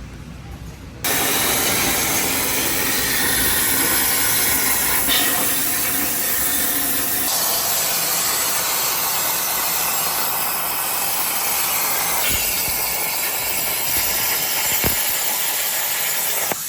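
Loud, steady hissing noise that starts suddenly about a second in and changes character a couple of times.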